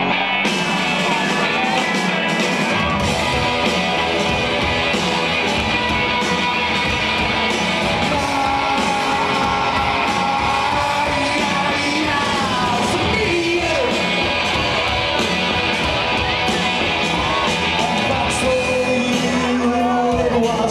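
Live rock band playing loud: a male lead singer sings and shouts over electric guitar, bass and drums, heard from among the audience in a large hall. The low end of the band fills in about two and a half seconds in.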